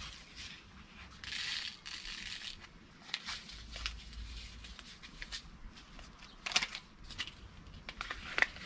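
Small paper seed packet rustling and crinkling as fingers work it, with a burst of rustling about a second in and a few sharper crackles later.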